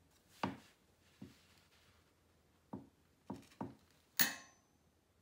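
Torque wrench tightening the clutch basket nut of a KTM 530 EXC: a handful of dull, spaced clicks and knocks, then a sharp metallic click with a short ring about four seconds in.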